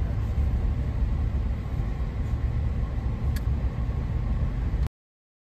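Steady low rumble of a car driving along an unpaved road, heard from inside the cabin, with one small click about three and a half seconds in; the sound cuts off abruptly near the end.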